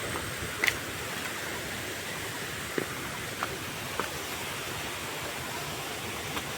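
Steady rush of water from a waterfall and its stream, with a few faint short clicks over it.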